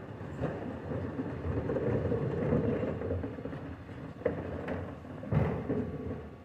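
Bin lorry working at the kerb: engine and lifting gear running steadily, with a few sharp knocks of bins in the second half.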